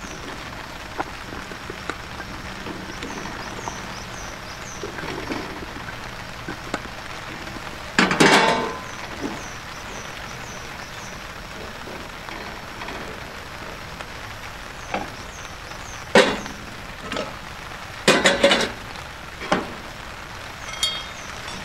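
Raw sweet potato chunks dropped by hand into a small frying pan on a camp stove. There are a few loud clattering knocks of pieces and the metal plate against the pan, over a steady hiss of heavy rain.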